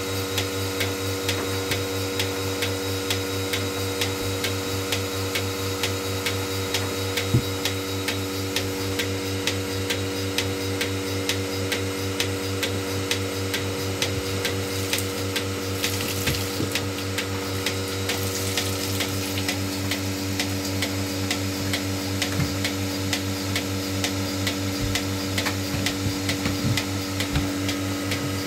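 Bucket milking machine running while it milks a cow: its vacuum pump hums steadily, with a fast, even ticking throughout.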